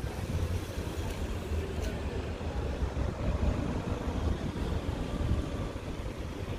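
Wind buffeting the microphone: an uneven low rumble with no clear tone, under faint outdoor background noise.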